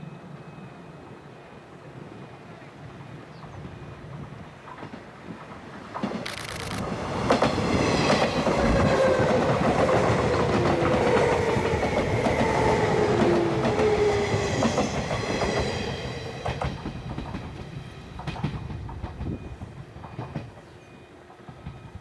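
JR 183 series electric multiple unit passing at speed: its rumble and wheel clatter swell suddenly about six seconds in, stay loud for about ten seconds with a slowly falling whine as it goes by, then fade away as the train recedes.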